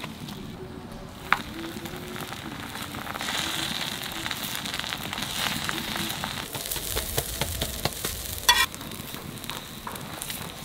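Oil sizzling on a hot flat griddle as a steel ladle spreads it over a paratha, with the ladle scraping the surface. A sharp clink comes about a second in, and a brief metallic screech of the ladle comes near the end.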